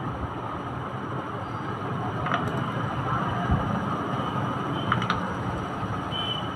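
Steady rumbling background noise, with a few light clicks of small plastic baby walker parts being handled, two pairs about two and a half seconds apart.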